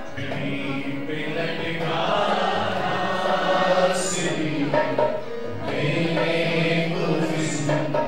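A man singing a devotional worship song in long held notes, accompanied by harmonium.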